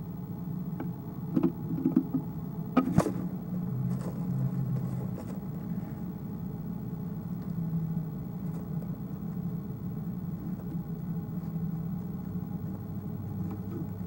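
Steady low hum of background noise, with a few sharp knocks and scrapes about two to three seconds in as an eastern screech owl shifts about in a wooden nest box.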